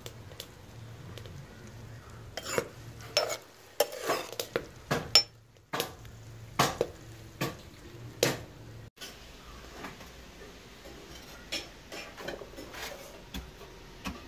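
Metal spoon stirring cooked fusilli in a metal pan, clinking and scraping against the pan in irregular sharp knocks, with a low steady hum underneath.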